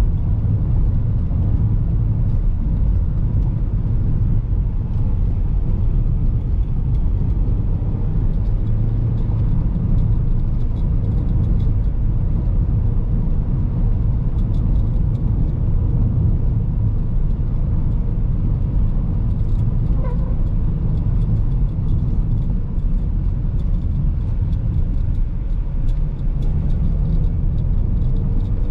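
Inside the cabin of a Mazda 5 with its 2.0 petrol engine running, driving over a rough, bumpy road: a steady low rumble of tyres and suspension, with many small knocks and rattles over the bumps.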